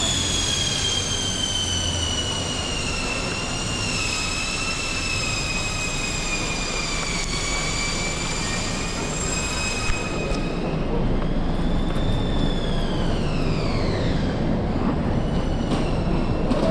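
A high-pitched mechanical whine that sinks slowly in pitch, then glides steeply down and fades away about two-thirds of the way through. It sits over a steady hiss of street noise.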